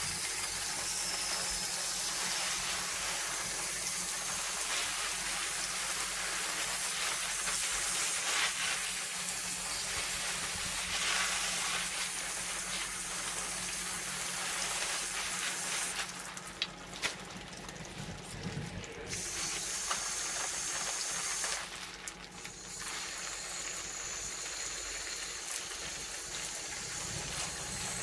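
Garden hose spray nozzle jetting water onto a bare cast-iron LS V8 engine block, a steady hiss of spray splashing off the metal. The spray thins for a few seconds a little past halfway and eases again near the end.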